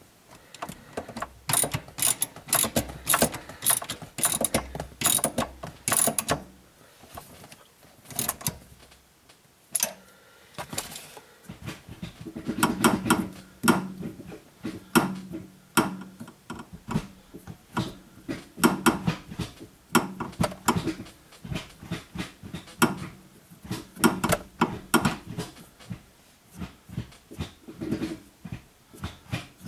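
Ratchet wrench clicking in quick bursts with pauses between, running a long screw down into the short shifter mount.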